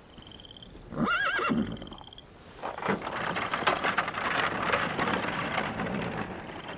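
A horse whinnies once, a wavering call about a second in, then hooves clop and clatter over a rolling noise.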